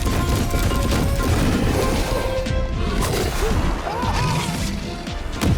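Animated action-scene soundtrack: dramatic background music mixed with crash and impact sound effects, a sharp hit about three seconds in and another near the end.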